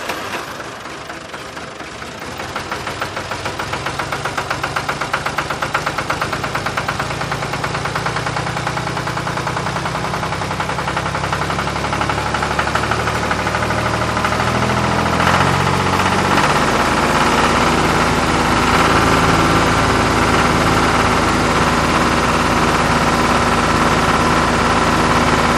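Tractor engine running with a rhythmic chug, growing louder over the first several seconds, then settling into a steadier drone.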